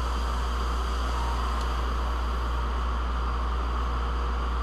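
Steady rush of air over a strong low hum from a dust collection system, air passing through its return-air filters.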